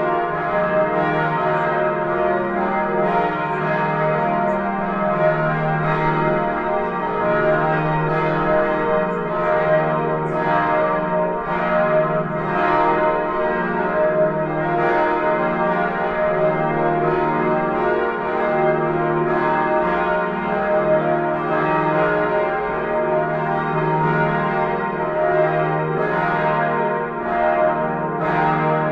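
Church bells of the Neumünster in Würzburg ringing, with repeated strikes over a continuous ringing hum.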